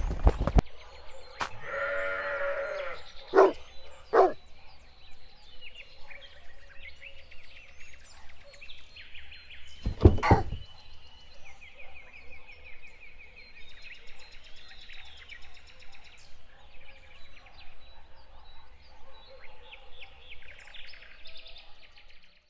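Birds chirping and trilling in an outdoor ambience, with a drawn-out animal cry about two seconds in, two short knocks soon after, and a loud thud about ten seconds in.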